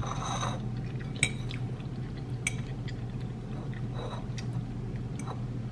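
Metal fork clicking and scraping against a ceramic bowl of pasta, a handful of light clicks about a second apart, with quiet chewing over a low steady hum.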